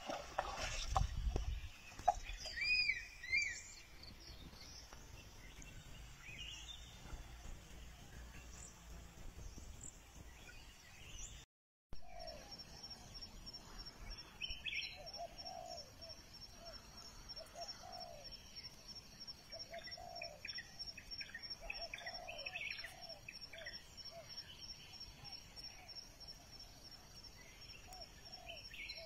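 Muddy water sloshing for the first couple of seconds as an Asian elephant shifts in a mud wallow, then birds chirping and calling. After a brief dropout, a steady high pulsing trill runs under repeated short bird calls.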